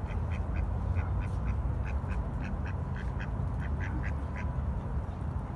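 Mallard ducks quacking in a run of short quacks, some in quick pairs, which stop about a second before the end, over a steady low rumble.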